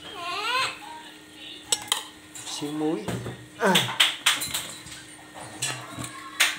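A kitchen utensil knocking and clinking against a metal wok of mushroom porridge on the stove, a scatter of sharp clinks spread irregularly through the few seconds, over a steady low hum.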